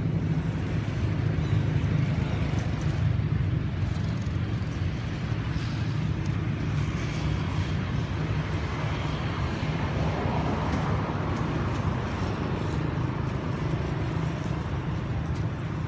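Steady low engine rumble, unchanging in pitch and level.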